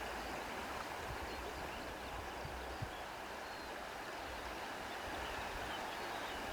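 Steady, even rushing noise like running water from a stream, with a few faint high chirps.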